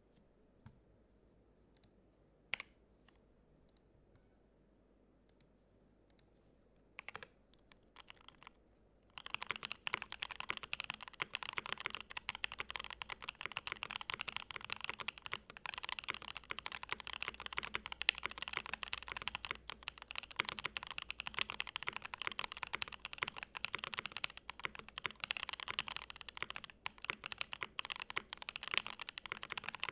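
Custom Saka 68 mechanical keyboard being typed on: lubed and filmed Gazzew Boba LT switches under GMK keycaps, with PE foam in the case and between the PCB and plate. A few scattered single keystrokes, then about nine seconds in, steady fast typing begins and keeps on.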